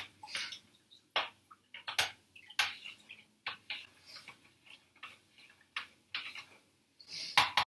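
A small spoon clinking and scraping against a mixing bowl of lemonade: irregular light clicks, about one or two a second, with a short noisy burst near the end.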